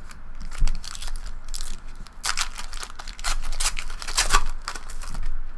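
Crinkling and rustling of trading-card packaging and cards being handled, in a string of short crackles that is busiest in the middle.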